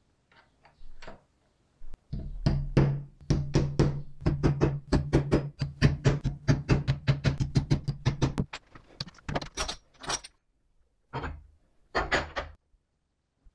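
A hammer tapping a small metal punch in quick repeated blows, about five a second, for several seconds. A few separate taps follow near the end.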